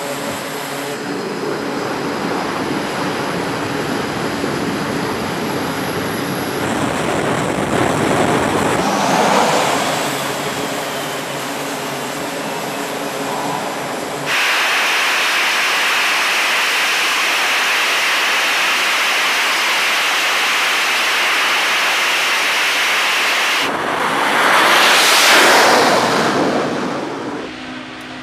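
Jet engines running on an aircraft carrier's flight deck: a steady turbine roar with a whine, rising in pitch briefly about a third of the way in. It jumps abruptly louder about halfway through, with an F/A-18 at high power behind a jet blast deflector, and near the end a louder jet roar swells and fades.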